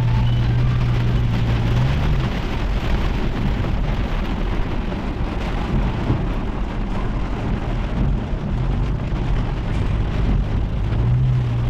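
Heavy rain falling steadily. A low, steady hum sounds under it for about the first two seconds and again near the end.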